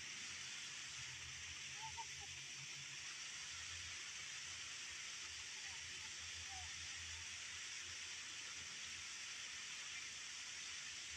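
Waterfall pouring down a rock face, a steady rushing hiss of falling water. Two brief sets of faint chirps sound over it, about two seconds in and again about six seconds in.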